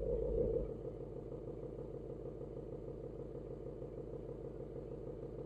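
Ford Mustang GT's 5.0 V8 idling through the factory active exhaust in track mode, valves open, with an even pulsing burble. It is louder for the first half second, then settles to a steady idle.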